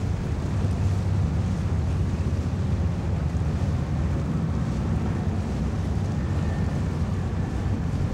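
Steady low rumble of a motorboat engine running under way, with wind buffeting the microphone and water noise.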